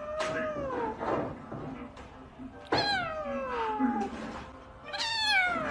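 Domestic cat meowing three times, each call long and falling in pitch, the middle one the longest.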